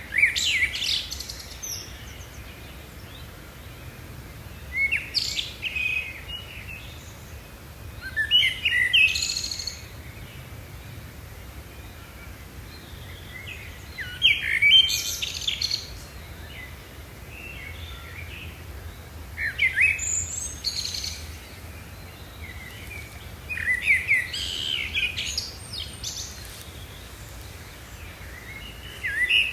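A songbird singing short bursts of chirps and trills, one phrase every four to six seconds, over a faint steady low background noise.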